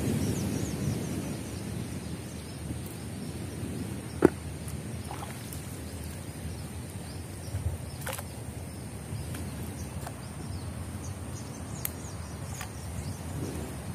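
Shallow swamp water sloshing and dripping around a wading man's legs as he hauls a float-lined fishing net out of the water by hand, strongest at the start. A single sharp click sounds about four seconds in, with a few fainter clicks later.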